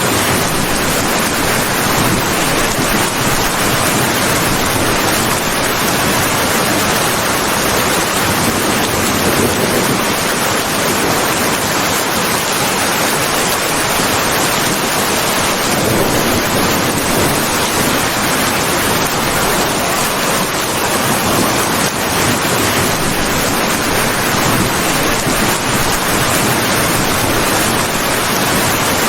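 Heavy rain falling steadily: a dense, even hiss with no single drops or thunder standing out.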